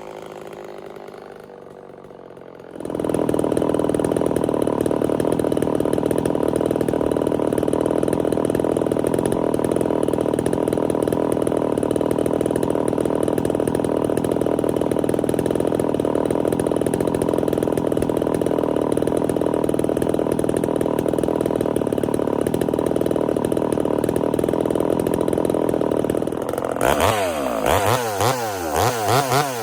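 Ported Homelite VI-130 two-stroke chainsaw: after about three quieter seconds it jumps to full throttle and holds a loud, steady note through a cut in firewood for over twenty seconds. Near the end the throttle is blipped, the engine revving up and down several times.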